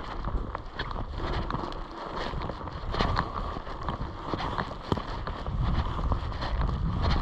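Wind buffeting the microphone in uneven gusts, with scattered small clicks and knocks.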